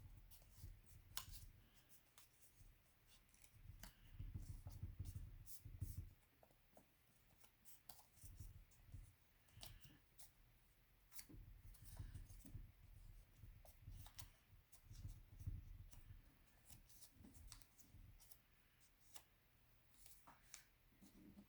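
Faint handling of a folded paper airplane: irregular sharp ticks and crinkles of paper being folded and creased by hand, with soft low thuds of the paper pressed against the table.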